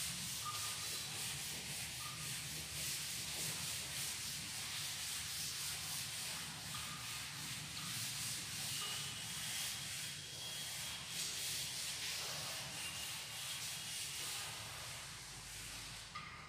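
A chalkboard duster rubbing across a chalkboard in repeated back-and-forth strokes, wiping off chalk writing. It trails off near the end.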